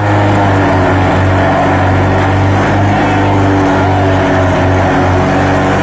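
Tractor-driven forage chopper running steadily under load as green fodder is fed in and chopped for silage, over the drone of the tractor's diesel engine. The mix is loud and even throughout.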